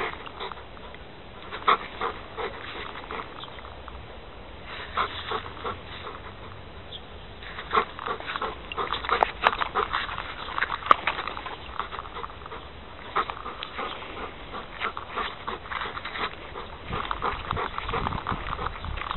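Giant schnauzer panting and whimpering as it heels close beside the handler, mixed with irregular scuffs and clicks of footsteps on a dirt path.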